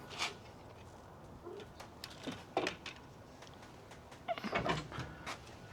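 A few faint, scattered clicks and knocks of old gate latch hardware being handled, with a short cluster of rattling about four and a half seconds in.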